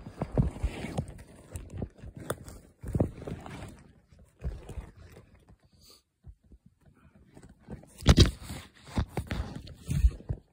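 Handling noise of a camera being moved about, set down and picked up on the forest floor: irregular knocks, scrapes and rustles of pine needles and twigs. There is a near-quiet pause about six seconds in, then a burst of louder knocks.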